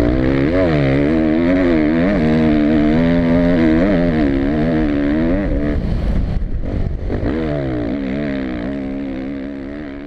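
Motocross bike engine heard from onboard while racing on a sand track, its pitch rising and falling over and over as the rider works the throttle. It drops away briefly about six seconds in, then picks up again and fades out near the end.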